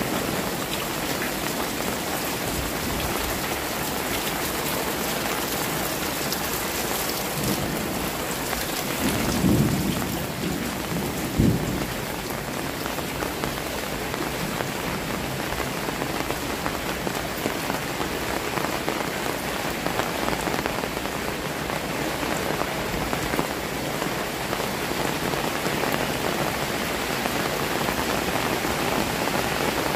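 Heavy rain pouring steadily onto a flooded alley path and nearby roofs. Two brief low thumps stand out near the middle, the second one sharp.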